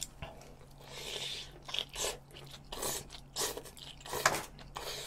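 Close-miked eating of spicy stir-fried webfoot octopus with bean sprouts: slurping the food in from chopsticks and crunchy chewing, in a string of short bursts, the sharpest a little after four seconds in.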